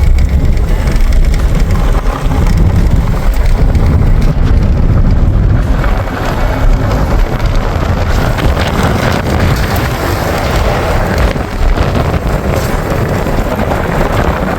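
Heavy wind buffeting the microphone over the rumble and road noise of a moving car.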